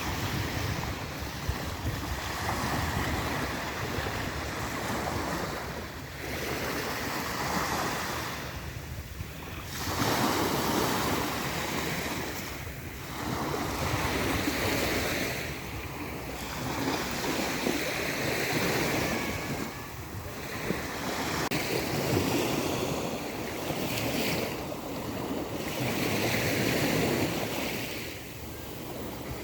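Black Sea surf washing onto the shore, swelling and easing every three to four seconds, with wind rumbling on the microphone.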